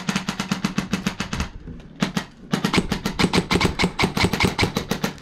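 Airsoft electric gun (AEG) firing on full auto: a rapid, even stream of mechanical clicks, pausing for about a second in the middle, then firing again.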